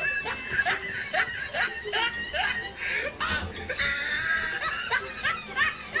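Women laughing: a quick run of short, repeated giggles, about three a second.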